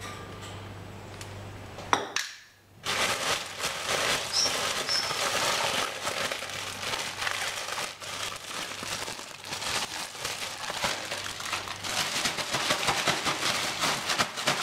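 Plastic packaging crinkling and rustling, starting about three seconds in and going on densely, as the ready-made pizza dough is handled out of its wrapping.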